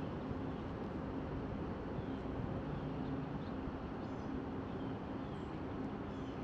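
A steady low rumble with a constant hum under it, and faint short songbird chirps scattered through, plus a couple of quick high ticking calls near the end.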